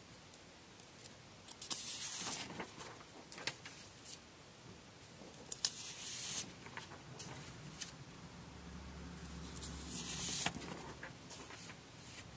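Sheets of animation paper being handled and turned, rustling in three bursts about two, six and ten seconds in, with small clicks and taps between.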